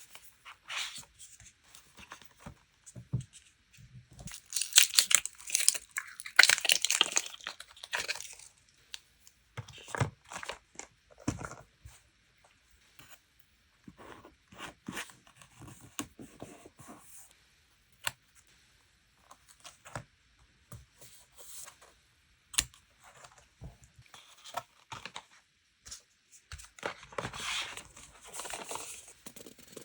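Paper being torn and handled, in two longer stretches of tearing and rustling a few seconds in and again near the end, with light taps and short rustles of paper in between.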